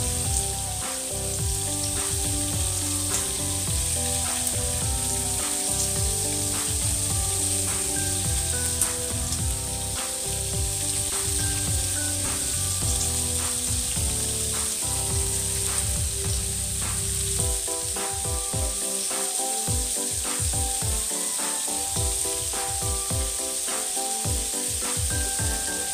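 Chicken pieces sizzling steadily in hot oil in a nonstick wok as they brown. Metal tongs click now and then as they turn the pieces.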